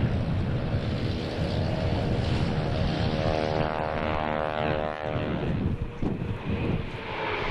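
Formation of a single-engine propeller aircraft and three light helicopters flying past: a droning engine and rotor note with a steady pitch rises out of wind noise on the microphone, is strongest in the middle, and fades away after about five seconds.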